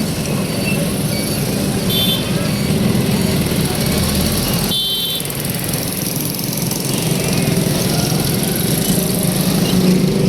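Busy city street traffic: the engines of passing motorbikes and cars run steadily. A couple of brief high-pitched tones sound about 2 and 5 seconds in.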